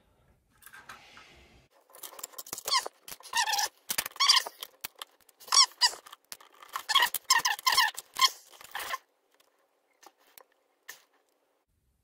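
Repeated short squeaks of metal working on metal as a screwdriver takes apart a small pin-tumbler lock cylinder. The squeaks start about two seconds in and stop about nine seconds in, followed by a couple of faint clicks.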